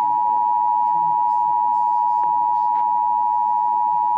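Emergency Alert System attention signal: the steady two-tone alarm at 853 and 960 Hz, sounding before a National Weather Service severe thunderstorm warning is read, heard through a computer's speakers.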